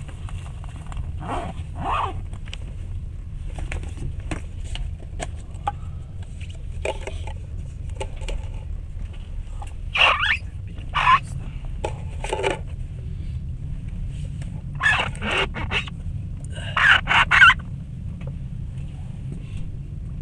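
Passenger train running, heard from inside the carriage: a steady low rumble with short squeaks and scrapes coming and going, the loudest clusters about ten seconds in and again around fifteen to seventeen seconds in.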